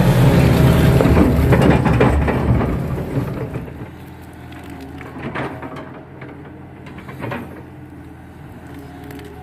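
Kato crawler excavator's diesel engine running loud while its bucket scrapes and pushes wet mud, with a dense crackle of mud and clods. About three and a half seconds in it drops to a much fainter engine sound with scattered sharp crackles.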